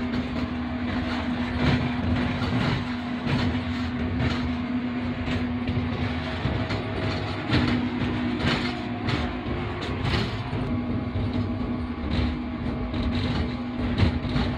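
Cab sound of a GEU-40 diesel-electric locomotive running along the line at speed: a steady running noise with a constant hum that drops out briefly about halfway, and the wheels knocking irregularly over rail joints.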